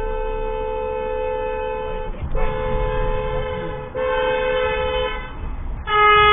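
Car horn held in long honks with two close notes: one blast of about two seconds, then two shorter ones after brief breaks. Near the end a louder horn with a different pitch begins and holds.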